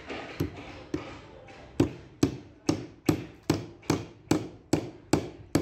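Hammer driving a thin nail through a wooden edge strip into a particleboard panel: two light setting taps, then steady sharp blows about two to three a second.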